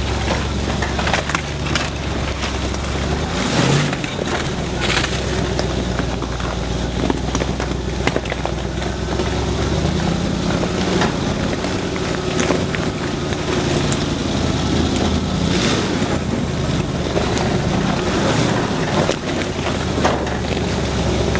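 Off-road 4x4's engine running at low speed as it crawls along a rough dirt track, the engine note changing a few times, with scattered knocks and rattles from the vehicle jolting over the ground.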